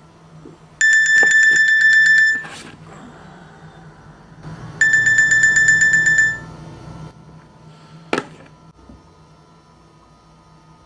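An electronic alarm rings twice, each a loud, rapidly pulsing high tone lasting about a second and a half, a few seconds apart, followed by a single sharp click about eight seconds in.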